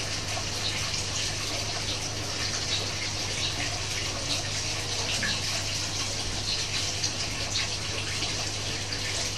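Steady rushing, water-like background noise with a low steady hum underneath.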